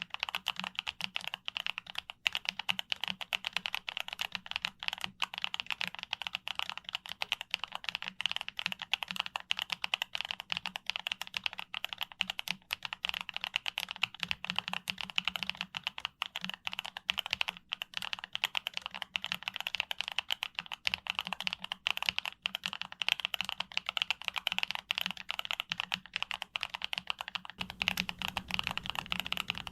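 YUNZII B75 Pro mechanical keyboard being typed on quickly and continuously, a dense stream of key clacks.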